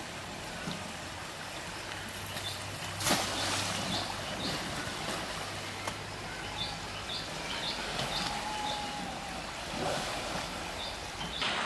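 Shallow stream water running and splashing as an elephant wades in and lies down in it, with a sharp splash about three seconds in. Short high chirps dot the background.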